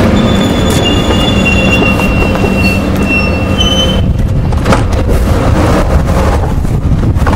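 Double-deck electric train at the platform, with a low rumble and its brakes or wheels squealing in several steady high tones for the first four seconds. After about four seconds the squeal stops and sharp clicks and knocks follow as a push-button carriage door is opened.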